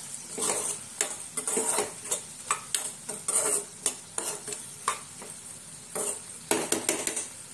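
A steel spoon stirring prawns and chopped onions in a non-stick kadhai, scraping the pan in irregular strokes over a light sizzle of frying.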